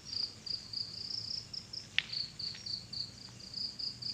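Crickets chirping in a high, pulsing trill of about four pulses a second, with two sharp clicks, one about halfway through and one at the end.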